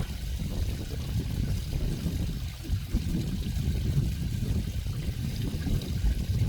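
Stream water flowing steadily, its sound weighted toward the low end.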